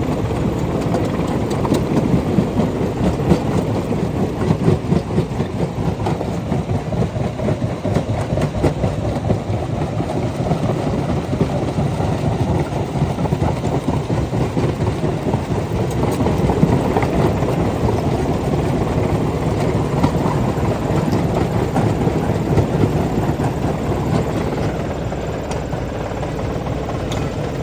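Rock crusher running steadily, a dense low rumble with a continuous rattle and crackle of stone being broken.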